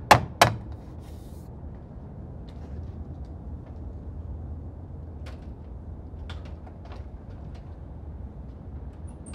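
Two quick rubber-mallet taps at the very start, knocking a plastic cover cap onto a frame screw in the door jamb. After that comes a steady low background noise with a few faint clicks and knocks as the glass sliding sash is handled with suction-cup lifters.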